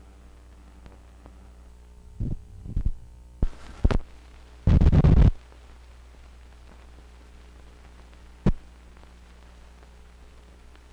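Old film soundtrack over blank film leader: a steady low electrical hum with a run of sharp pops and crackles about two seconds in, a loud half-second burst of noise near the middle, and one more pop a few seconds later.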